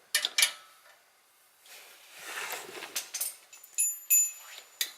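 Metal hand tools, a wrench and ratchet, clinking and clattering as they are handled, with a few sharp clicks near the start, a softer rustle in the middle and a run of ringing clinks near the end.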